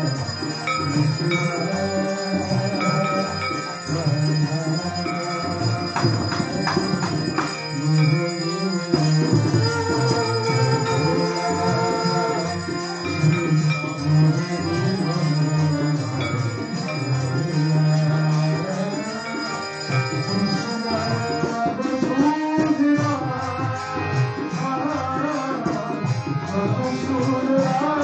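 Indian devotional bhajan: a harmonium playing the melody over tabla drumming, with a man's voice singing along, its pitch sliding and wavering most in the last few seconds.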